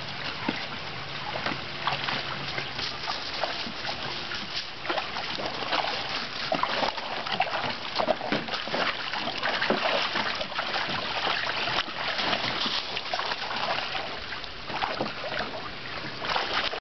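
Water splashing and sloshing in a small plastic kiddie pool as several dogs step in and wade around, with irregular splashes throughout.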